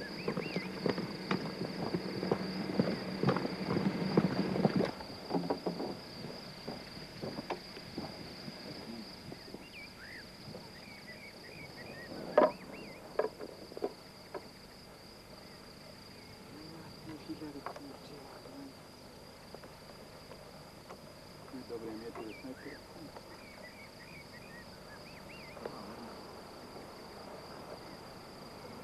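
Insects chirring in a steady, high, pulsing drone. There are footsteps and rustling over the first five seconds, and two sharp knocks about twelve and thirteen seconds in.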